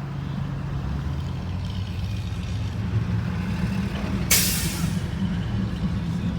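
A vehicle engine running steadily with a low drone, with one short, sharp burst of hiss about four seconds in.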